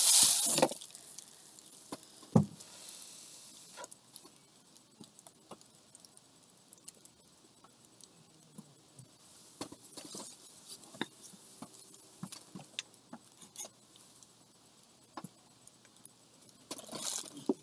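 Scattered light clicks and taps of small objects being handled on a table, with one sharper knock about two and a half seconds in. A hiss fades out within the first second, and a short hiss returns near the end.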